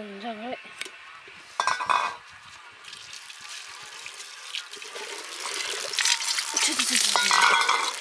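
Water pouring, growing louder from about halfway through. A short clatter comes about two seconds in.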